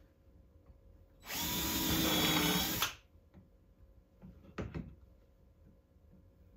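Cordless drill with a No. 8 countersinking bit boring a countersunk pilot hole in wood: one steady run of about a second and a half, starting about a second in. A short knock follows a few seconds in, and the drill starts again at the very end.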